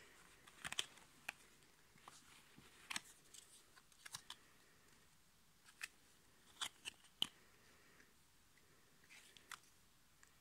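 Trading cards being handled: scattered small clicks and snaps of card stock as cards are picked up, held and set down, the sharpest near the start and about seven seconds in.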